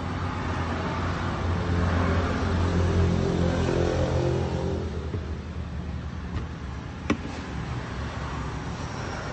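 A motor vehicle's engine running nearby, a steady low hum that swells for a few seconds and then eases off. There is one sharp click about seven seconds in.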